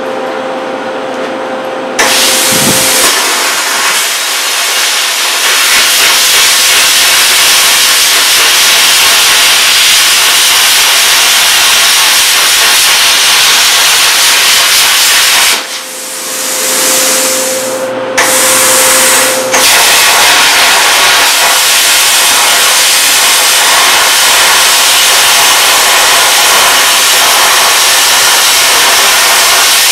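Plasma cutter cutting steel plate: a loud, steady hiss of the cutting arc starts about two seconds in. It breaks off for a few seconds a little past halfway, with a brief restart in between, then runs steadily again. Before the cut starts there is a steady hum.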